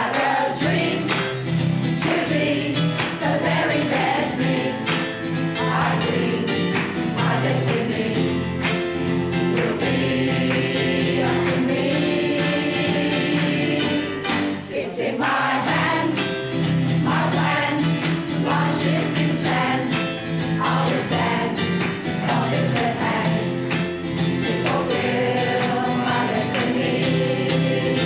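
Mixed community choir of men and women singing a song in harmony with piano accompaniment, over a steady rhythmic beat.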